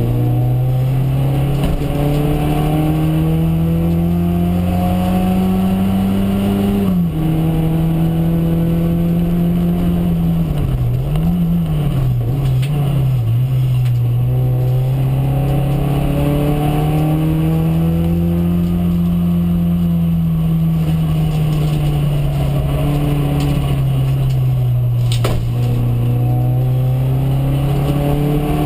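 Mk1 VW Golf race car's engine under hard driving, heard from inside the cabin. The revs climb, drop suddenly about seven seconds in, wobble up and down a few times briefly, then pull long and steady before easing off and climbing again near the end.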